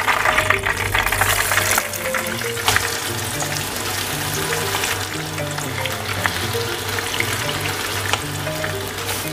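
Chicken pieces deep-frying in a pot of hot oil during their second fry, making a dense crackling sizzle. The crackling is loudest in the first couple of seconds, then settles to a steady sizzle, with soft background music underneath.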